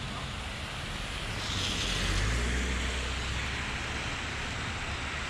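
Steady rush of road and wind noise from a motorcycle riding a wet highway, with tyre hiss on the soaked pavement. It swells louder for a second or so about two seconds in.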